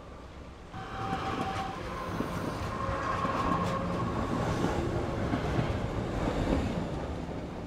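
Motorised LEGO City 60051 high-speed train running on plastic track, its motor and wheels clattering. It grows louder from about a second in as it passes close by, then fades.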